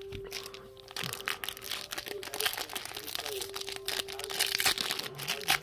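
Foil wrapper of a trading card pack crinkling and rustling as it is handled and opened; the crackle starts about a second in and goes on irregularly.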